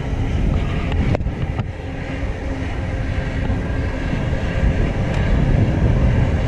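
Low, steady rumble of a large boat's engines, mixed with wind buffeting the microphone.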